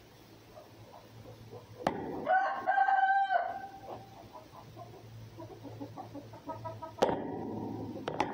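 A single drawn-out animal call about two seconds in, lasting about a second, like a distant rooster's crow; a click comes just before it, fainter short calls follow later, and a sharp knock comes near the end.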